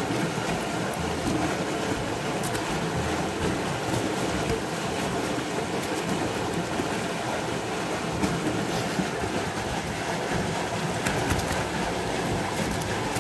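A steady low rumble with scattered sharp clicks, the clicks thickest near the end, from live black tiger prawns flicking and jumping on a plastic tarp as they are sorted by hand.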